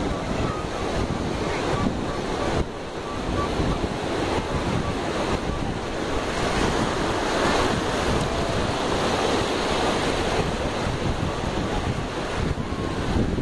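Small surf washing in and out over shallow water at the water's edge, with wind buffeting the phone microphone.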